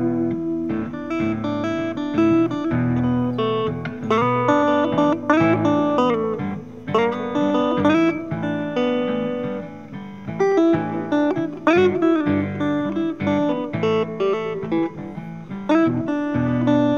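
Background music: a guitar playing a picked melody with bent notes over a steady accompaniment.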